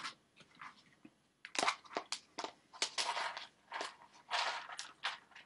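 Munching and crunching noises for a raccoon hand puppet eating: a run of quick, irregular crunches that starts about a second and a half in.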